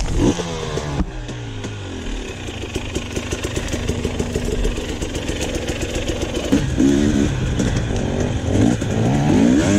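KTM two-stroke dirt bike engine revving hard and easing off on a trail: a fast drop in revs in the first second, steadier running through the middle, then repeated quick rises and falls in revs near the end. There is a single knock about a second in.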